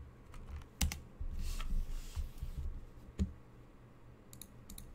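Typing on a computer keyboard: scattered key clicks, a sharp one about a second in, another a little after three seconds, and a quick run of clicks near the end.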